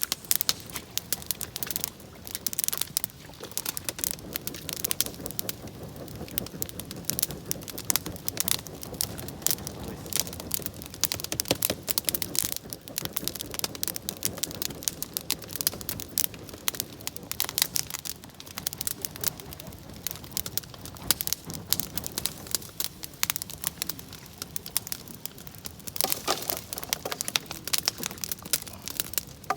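Wood campfire crackling, with a dense, irregular run of sharp snaps and pops.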